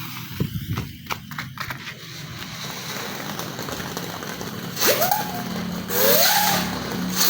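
Non-exploding ground firework crackling as it is lit, then burning with a steady hiss that swells into louder surges in the last few seconds, with brief rising-then-falling tones over the surges.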